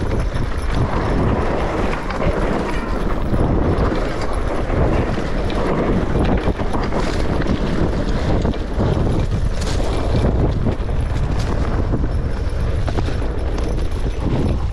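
Mountain bike descending a dirt singletrack: wind buffeting the rider's chest-mounted camera microphone over the rumble of tyres on dirt, with scattered sharp knocks from the bike.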